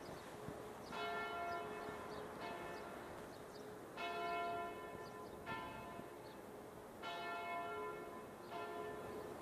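Church bells ringing, faint, with a struck, ringing stroke about every one and a half seconds, six strokes in all.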